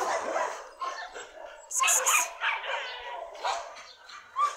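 Dog barking in short irregular bursts, the loudest cluster about two seconds in.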